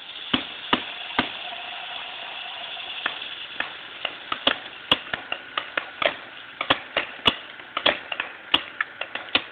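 Paintball markers firing during a game: about two dozen sharp pops at an irregular pace, sparse at first and then coming more often from about three seconds in, some close together in pairs, over a steady hiss.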